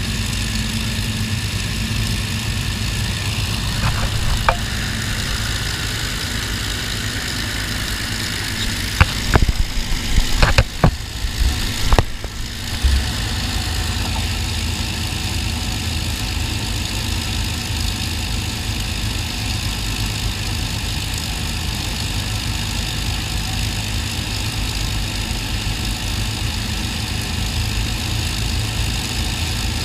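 Avro Lancaster bomber's Rolls-Royce Merlin V12 piston engines running steadily at low power, a deep even drone. A few short, sharp knocks break in around nine to thirteen seconds in.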